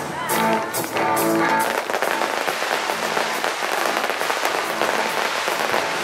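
Live band music plays its last notes in the first second and a half, then gives way to a dense, continuous crackling of fireworks.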